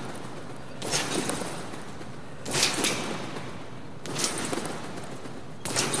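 Someone bouncing steadily on a gym trampoline mat: four landings, each a short burst of mat and spring noise, about every 1.6 seconds.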